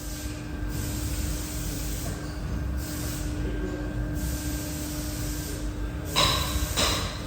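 Automatic double-head conveyor belt grinder running: a steady hiss from the abrasive belts over a constant motor hum. About six seconds in, louder rough bursts break in.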